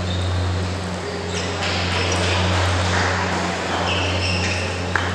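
Celluloid-style table tennis ball clicking off bat and table, with a sharp click near the end, over a steady low hum.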